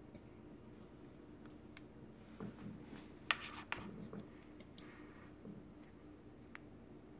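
Faint scattered clicks and handling noises as a glass plate and a gasket form are handled and the gasket is worked off a soft, half-cured photopolymer resin stamp, over a low steady hum.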